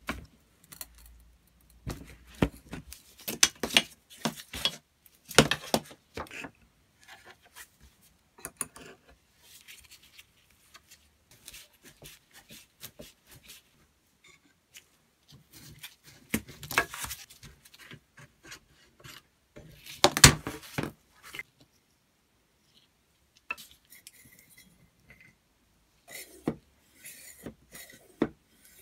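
Hand tools working on an old steel foot pump during disassembly: an adjustable wrench and a screwdriver clinking, scraping and knocking against the rusty metal parts in irregular bursts with short pauses between. The loudest knocks come about a third of the way in and again about two-thirds in.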